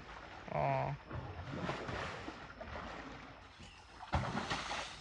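Elephant moving down through brush to a muddy river: rustling and water noise, with a heavy thud about four seconds in.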